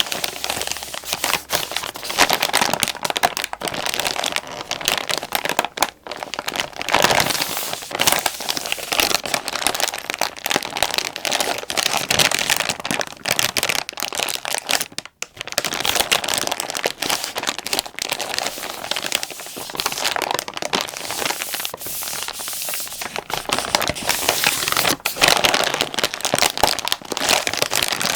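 A plastic wet-wipes pack being crinkled, a continuous dense crinkling and crackling with a brief pause about halfway through.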